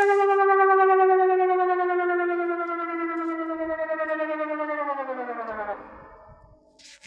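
Civil-defence warning siren sounding during a test: one loud, wavering tone held and sinking slowly in pitch, then winding down about five seconds in and fading out.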